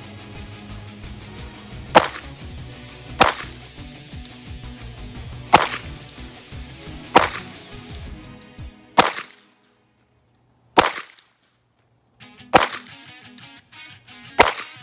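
Glock 44 .22 LR pistol firing eight single shots at a slow, even pace, one about every one and a half to two seconds, each a sharp crack.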